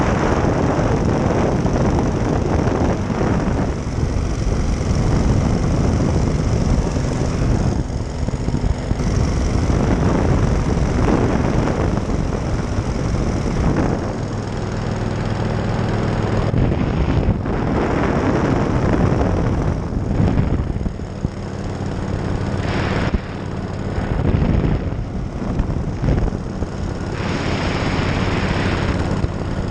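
Ultralight powered parachute's engine and pusher propeller running steadily in flight, mixed with wind rushing over the microphone.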